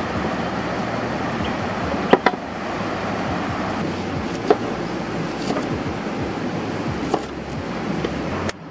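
Steady rushing of a flowing stream, with a few sharp knocks of a knife striking a wooden cutting board while an onion is sliced.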